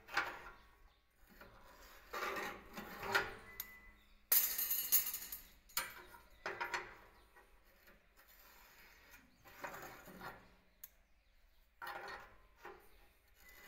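Steel rebar clinking and scraping on a hand-operated rebar stirrup bender and its steel worktable as the rod is fed through and bent. The sound comes in several separate bursts, the loudest about four to five seconds in.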